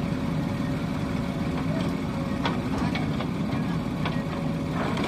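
Diesel engine of heavy machinery running steadily, with a few short knocks in the middle and near the end.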